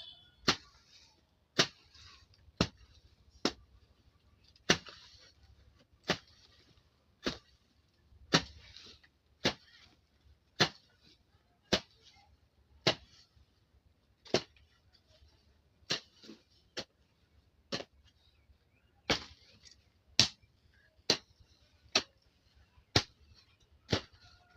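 Jembe hand hoe chopping into soil and weeds in a steady rhythm, about one stroke a second, with a brief rustle of grass after some strokes.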